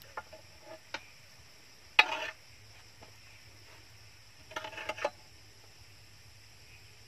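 Metal spoon, plate and frying pan knocking together: a few light taps, one sharp short clatter about two seconds in, and a quick run of clinks about two and a half seconds later.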